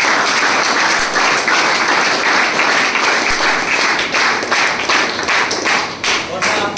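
A roomful of people clapping steadily, applause that thins out near the end.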